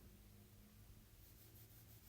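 Near silence: faint room tone with a low steady hum through the first half.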